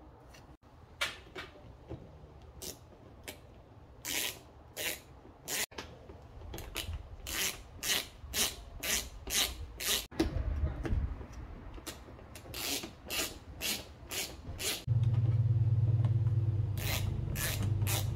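Ratchet wrench tightening the mounting nuts and bolts of a car's rear bumper side splitter: spurts of short ratcheting strokes, about two a second. A steady low hum comes in suddenly about three-quarters of the way through and is the loudest sound.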